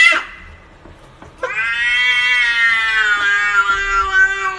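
Domestic cat meowing. The tail of a rising meow ends right at the start, and after a short pause comes one long, fairly steady meow lasting about three seconds.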